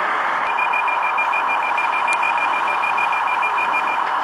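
Rapid electronic beeping: one high tone pulsing quickly and evenly, starting about half a second in and stopping near the end, over the steady murmur of a busy exhibition hall.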